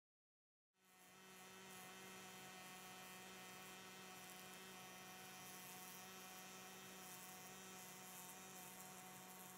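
Faint MAG welding arc on steel, starting about a second in: a steady low buzz over a hiss.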